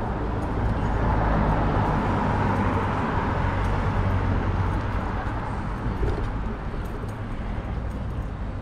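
A car driving past on the street, its road noise swelling about a second in and then slowly fading.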